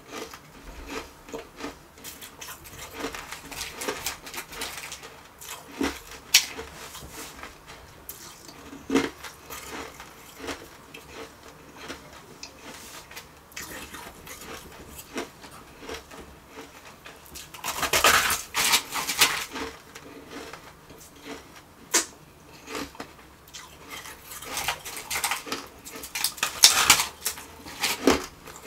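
Refrozen shaved ice being crunched and handled over a stainless steel bowl: scattered clinks and crackles, with two longer bursts of crunching, one a little past the middle and one near the end.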